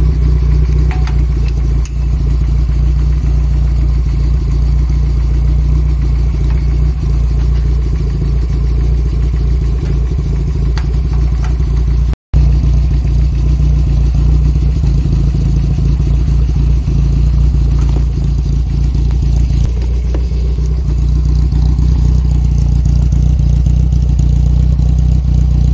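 Nissan A14 four-cylinder engine idling steadily.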